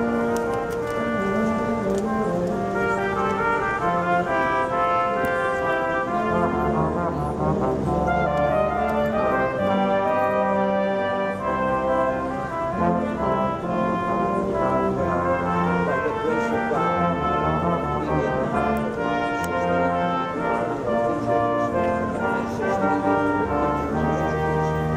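A live brass ensemble of tuba, trombone and trumpets playing in harmony, held chords moving from note to note over low tuba notes that come and go.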